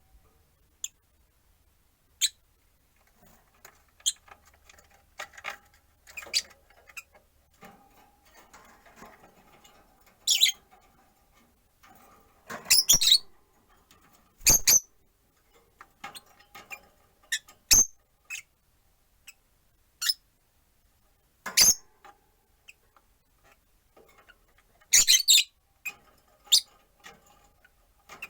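Rosy-faced lovebirds giving short, sharp, high chirps, scattered irregularly with a couple of louder flurries.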